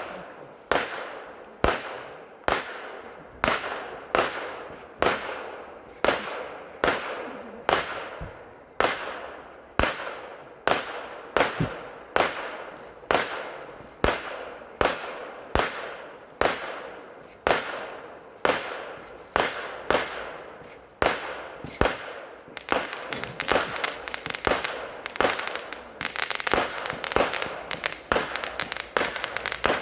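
Consumer firework cake firing a steady string of shots, roughly one a second, each launch followed by a crackling break. About three-quarters of the way in, the shots speed up into a dense, rapid volley.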